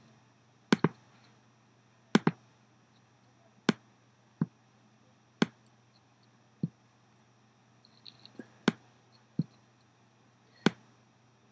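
Computer mouse clicking: about a dozen single sharp clicks, a second or more apart, over a faint low hum.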